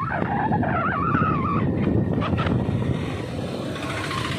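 Street traffic noise with a motor vehicle running close by. A wavering high tone sounds through the first second and a half, and a few short clicks come just past the middle.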